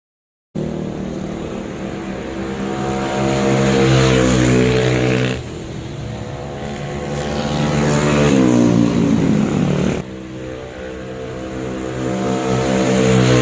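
Single-cylinder four-stroke engine of a tuned stock Yamaha Mio scooter, running through an aftermarket exhaust and pulling hard under acceleration. It builds up three times, the sound dropping off abruptly after each of the first two pulls, with the pitch gliding down and back up in the middle pull.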